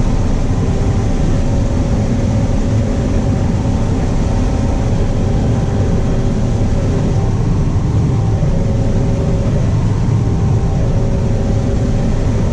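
Combine harvester running steadily while combining corn, heard from inside the cab: a constant low drone of engine and threshing machinery with a few steady tones over it.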